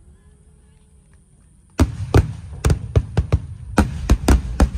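Fireworks shells bursting overhead. After a quiet first couple of seconds comes a rapid string of about ten sharp booms over roughly three seconds, each with a rumbling tail.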